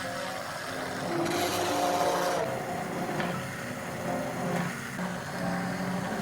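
Background music with held notes, over a rough scraping or rasping noise that is loudest around the middle.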